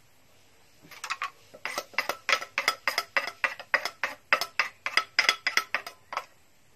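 A spoon scraping and knocking around inside a clay mortar, giving quick sharp clicks about four a second, as pounded cooked fish is scraped out.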